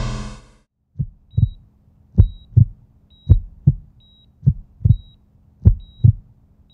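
A slow heartbeat sound effect: paired low thumps (lub-dub) about once a second, starting about a second in, over a faint steady hum and faint short high beeps. The last of a music sting fades out just before the first beat.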